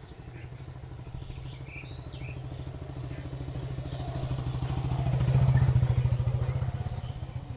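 A motor vehicle's engine passing close by, with a fast, even pulsing note that grows louder to a peak about five to six seconds in, then fades.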